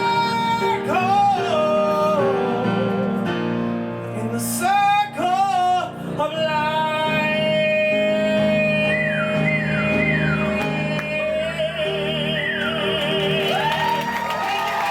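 A singer performing live over piano accompaniment, holding long notes with vibrato and sliding down in several quick swoops partway through.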